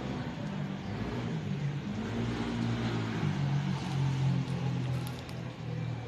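Low, steady engine hum that grows louder about four seconds in and eases off near the end.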